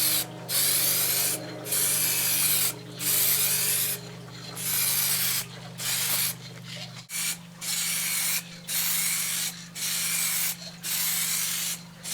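Aerosol spray can of clear coat hissing in repeated strokes about a second long with short pauses between them, about a dozen passes, as a coat of clear lacquer goes onto a car body panel.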